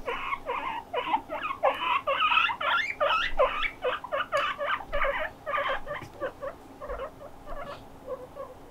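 Guinea pigs squeaking in a fast run of short, repeated calls, several a second, growing fainter in the last couple of seconds.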